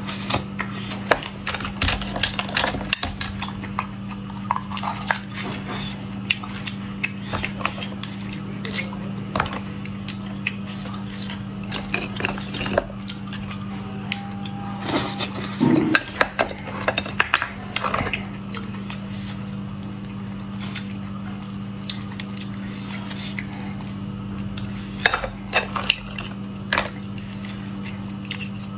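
Oyster shells and a metal knife clinking and scraping against a plate and each other, in scattered sharp clicks that bunch up in a few busy stretches, over a steady low hum.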